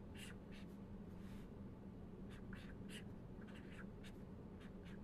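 Pen writing on paper, faint, in a quick irregular series of short scratchy strokes, over a low steady hum.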